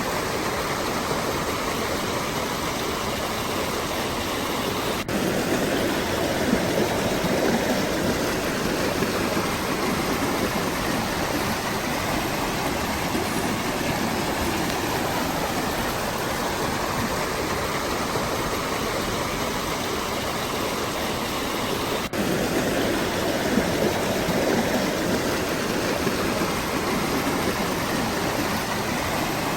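Waterfall rushing steadily, a continuous noise of falling and splashing water. About five seconds in and again about twenty-two seconds in there is a brief dropout, and after each the rush comes back slightly louder and fuller.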